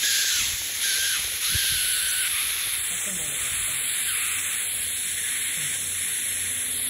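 Steady high hiss from a laser marking machine at work, with faint voices in the background.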